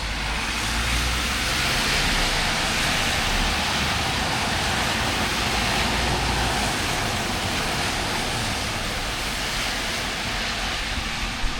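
Steady hiss of heavy rain outside, heard through an open window, with a low rumble underneath that fades out about six or seven seconds in. No siren sounds.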